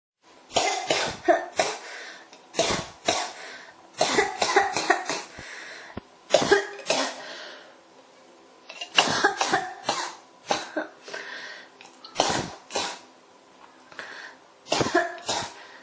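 A person coughing in repeated fits: runs of two to five sharp coughs in quick succession, with short pauses between the runs.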